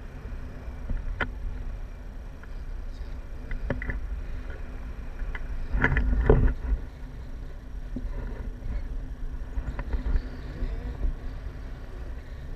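Airflow buffeting a pole-mounted action camera's microphone in flight under a paraglider: a steady low rumble with scattered clicks and knocks, and a louder burst about halfway through.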